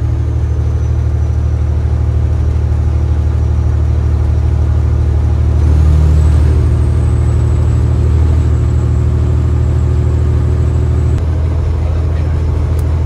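Semi-truck engine and road noise inside the cab while cruising on the highway: a steady low drone with a faint high whine above it. The drone swells and the whine rises about six seconds in, then both drop away about two seconds before the end, with a few light clicks right at the end.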